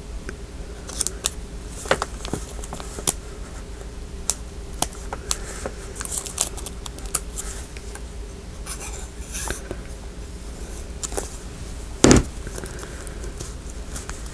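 Irregular small clicks, taps and scratchy rustles of hands handling paper and craft pieces on a journal page, with one louder knock about twelve seconds in.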